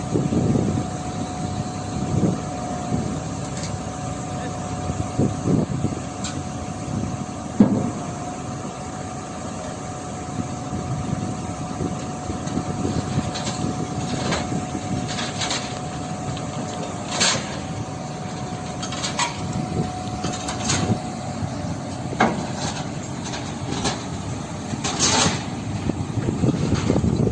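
Heavy machinery's diesel engine running steadily, with a faint steady whine that stops about three-quarters through and scattered sharp metallic clicks and knocks.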